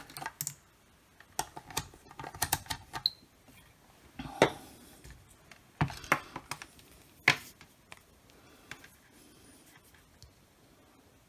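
Handling noise from a multimeter and its test probes on a rubber bench mat: a run of irregular clicks and knocks, with two louder knocks about four and seven seconds in, then only faint taps near the end.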